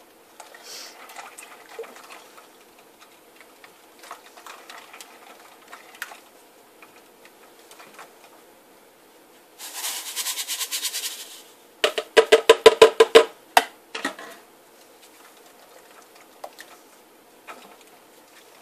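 A spatula stirring and scraping half-frozen goat milk and lye in a glass bowl that sits in an ice bath, working the lye in to dissolve. There is soft scraping throughout, a quick rasping run about ten seconds in, then a burst of about ten loud, fast clacks against the bowl.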